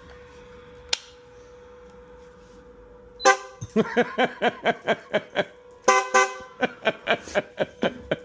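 Train-style air horns honking in a rapid series of short blasts, about four a second, starting about three seconds in with a brief pause partway through. Before the blasts there is only a faint steady hum and a single click.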